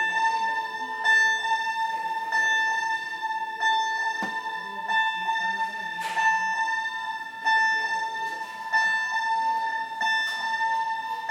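Fire alarm sounding a steady electronic tone with a buzzy edge, briefly breaking and restarting about every second and a quarter.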